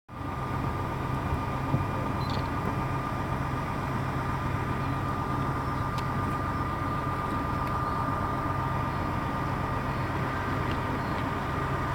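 A steady, unchanging low mechanical hum, like an engine running at idle, with a thin steady tone above it.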